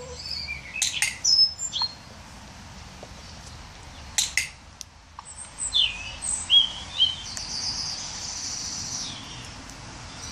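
Small birds chirping in short, high, quick notes, with a fast trilled phrase about seven and a half seconds in. A few sharp clicks come about one second and four seconds in.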